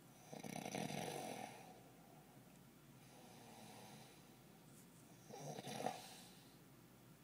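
A sleeping man snoring: two loud snores about five seconds apart, with a softer breath between them.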